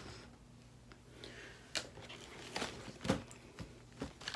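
A few soft knocks and rustles of items being handled and set down, the loudest about three seconds in.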